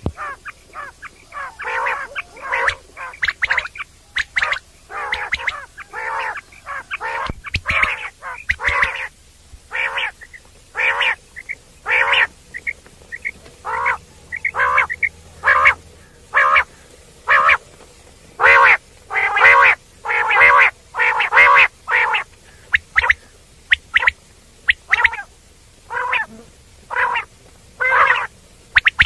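Common quail calling: a rapid series of short, nasal calls, about one to two a second, some run together in quick bunches.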